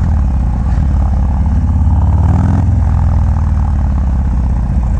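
Harley-Davidson Milwaukee-Eight V-twin, bored out with a 117 kit, running loud through a Bassani Road Rage 2-into-1 exhaust. Its pitch climbs for a moment and drops off sharply about two and a half seconds in.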